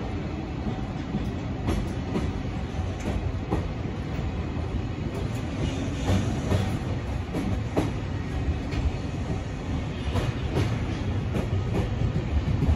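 Freight train of container flatcars rolling past: a steady rumble of steel wheels on the rails, with scattered clacks as the wheels cross rail joints.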